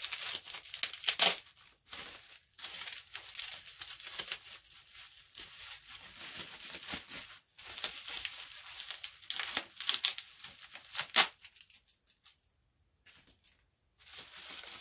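Clear plastic packaging being crinkled and torn open by hand, with sharp crackles, the loudest near the start and around 10–11 seconds in, and a brief quiet stretch near the end.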